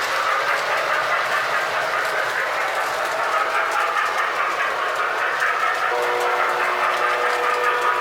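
Toy O gauge electric trains running on three-rail track: a steady rumble and clatter of wheels and motors. About six seconds in, a steady two-note train horn starts sounding over it.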